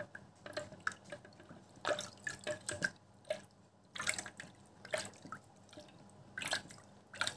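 Soapy water splashing and dripping in the plastic jar of a StylPro Squeeze makeup-sponge cleanser as its plunger is pushed down and pulled up. The splashes come in short, irregular bursts, about one or two a second.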